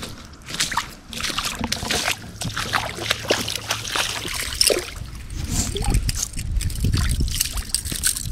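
Shallow water splashing and sloshing in irregular bursts as a white bass is put on a stringer and boots wade at the water's edge.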